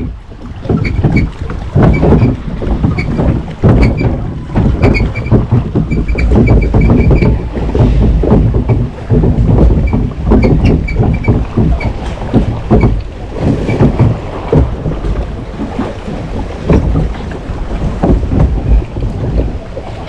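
Log flume boat moving through its water channel: a steady rush of churning, splashing water, with wind buffeting the microphone.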